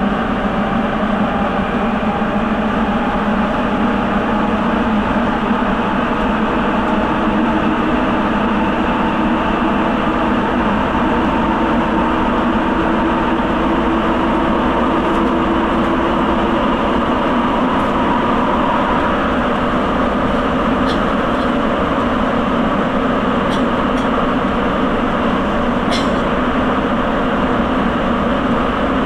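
Sapporo Municipal Subway Tozai Line rubber-tyred train running through the tunnel, heard from inside the car: a steady rumble of tyres on the guideway with a faint motor whine. A few light clicks come late on.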